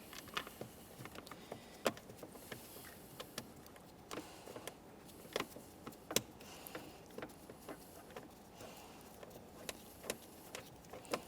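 Faint, irregular clicks and taps of plastic steering column covers being pressed together and handled while a mounting screw is started into them by hand.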